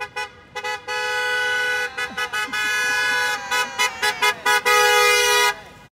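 Car horns honking in a drive-by parade: a string of short toots broken by several longer held blasts, cutting off just before the end.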